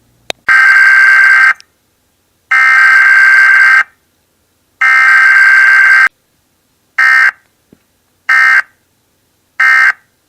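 Emergency Alert System SAME digital data tones: three bursts of about a second each, then three short bursts a little over a second apart, the short trio being the end-of-message code that closes an EAS alert.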